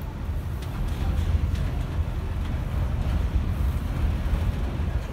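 Low, steady rumble of an R46 New York City subway train approaching on elevated tracks.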